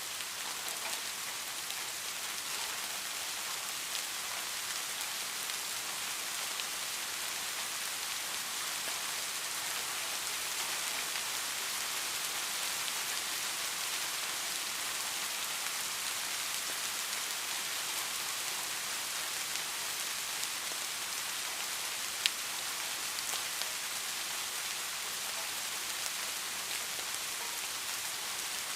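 Steady rain falling, an even hiss with scattered drop ticks and one sharp click about 22 seconds in.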